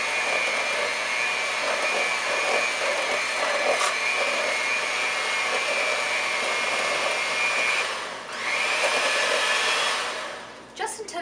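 Handheld electric mixer running, its beaters whirring steadily through crepe batter in a stainless steel bowl. About eight seconds in the motor briefly slows and speeds back up, and it shuts off about ten seconds in.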